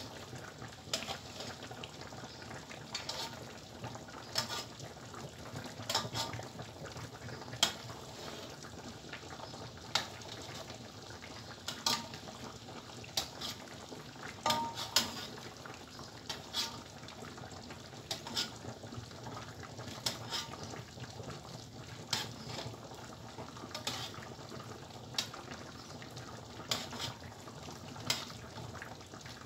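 Metal spoon clinking against the rim and bottom of a wide metal pan, irregularly every second or two, as hot syrup is spooned over bread dessert, with a steady low bubbling of the syrup simmering underneath.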